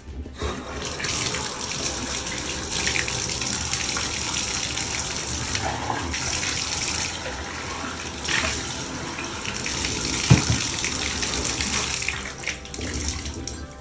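Water running steadily into a bathtub as a wet French Bulldog is washed, with a single short knock about ten seconds in.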